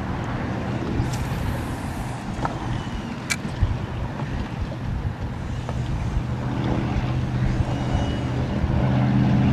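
A motorboat engine hums steadily over wind and water noise, growing louder in the second half, with a few faint clicks.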